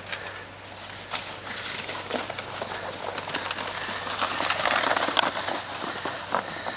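Green plastic sled sliding over snow: a crackly scraping hiss that builds to its loudest past the middle and dies away as the sled slows near the end.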